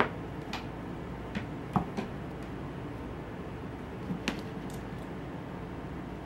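A handful of short, light taps and knocks from kittens batting, pouncing and landing on a carpeted cat tree while playing with a string wand toy, over a steady low hiss. The sharpest taps come at the start, a little under two seconds in and about four seconds in.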